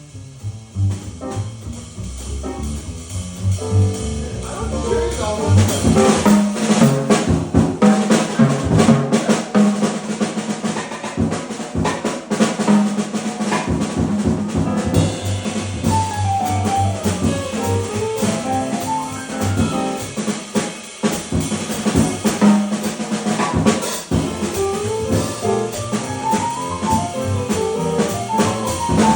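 Instrumental jazz-style music: a bass line alone at first, then a drum kit comes in about four seconds in with snare, rimshots and bass drum, under a melody that runs up and down.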